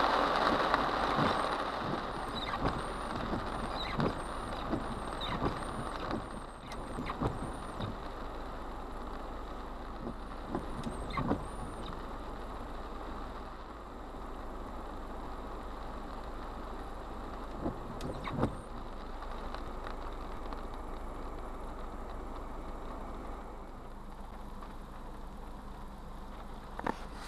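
Heavy rain drumming on a car's roof and windshield, heard from inside the cabin, with scattered sharp ticks of larger drops. It is heaviest at the start and eases to a lighter, steady patter after about six seconds.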